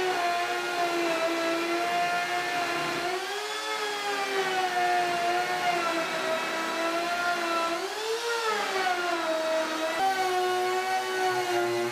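Woodworking router motor running at a high, steady whine. Its pitch sags and recovers twice as it bites into the wood under load.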